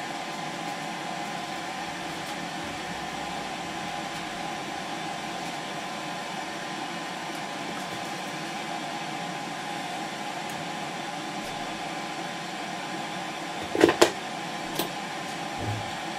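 Electric desoldering tool (solder sucker) switched on and running with a steady hum while it heats up. Two sharp knocks come together about fourteen seconds in, followed by a fainter one.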